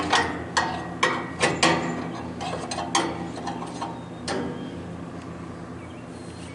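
Metal hand tools clinking and clanking as they are picked up and moved out of the way: a quick run of sharp knocks that thins out after about four seconds, over a faint steady low hum.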